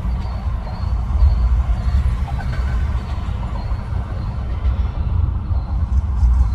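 Steady low rumble of interstate traffic, cars and heavy trucks, crossing the Interstate 10 bridge.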